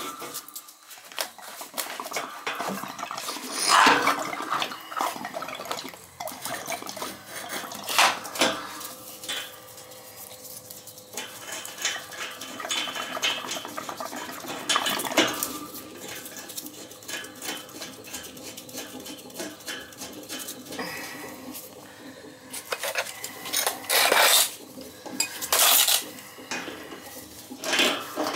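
Metal clinks and clanks of hand tools and fittings at the valve and union of a cast iron radiator being connected. Sharp knocks come at intervals, loudest about four seconds in and twice near the end.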